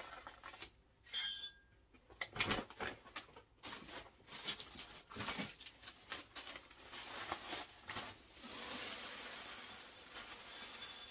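Hands mixing potting mix in a makeshift bowl: scattered rustles and crunches, then steadier rustling from about eight seconds in.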